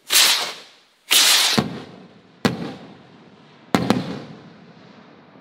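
Cohetes (Mexican skyrockets) going off one after another: two loud bangs about a second apart, each with a long fading tail, then sharper single cracks about two and a half seconds and about four seconds in.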